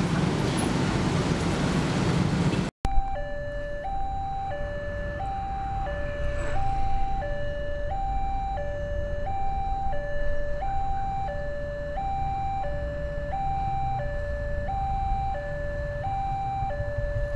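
Road traffic noise, then after a sudden cut about three seconds in, a railway level crossing's electronic warning alarm sounding two alternating tones, high-low, about one and a half cycles a second. It warns that a train is approaching while the crossing barrier comes down.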